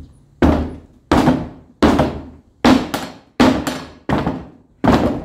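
A big rubber mallet striking a tire sidewall just above the rim lip, driving the bead down over the wheel to mount the tire by hand. There are seven heavy thuds at a steady pace of about one every three-quarters of a second, each dying away quickly.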